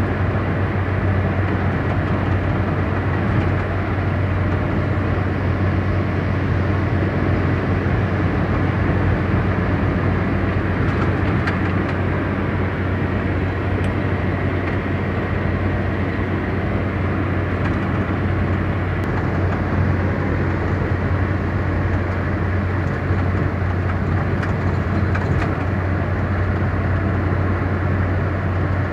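Car driving steadily: continuous engine and tyre noise with a low, even hum.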